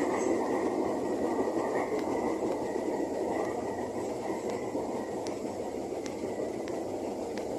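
Steady running noise of a KRL electric commuter train, heard from inside the carriage, with a faint high steady whine over it and a few light clicks in the second half.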